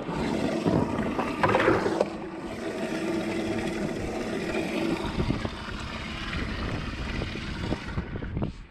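Water splashing and churning in an open bass boat livewell as largemouth bass are put in, with a steady hum under it. The sound cuts off suddenly near the end.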